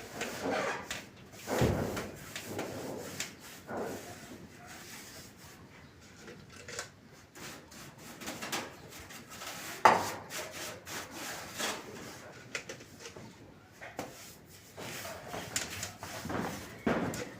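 Irregular knocking and scraping, like wood or building materials being handled and shifted, with one sharp knock about ten seconds in.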